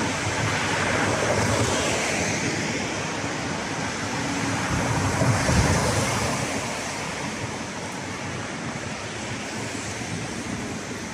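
Street traffic: a steady wash of vehicles driving past on a busy city street, swelling as vehicles pass close about a second in and again around five to six seconds in.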